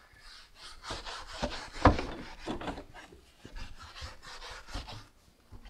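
Stiff-bristled detailing brush scrubbing the foamed underside of a car hood: a run of rough scraping strokes, with one sharp knock a little under two seconds in.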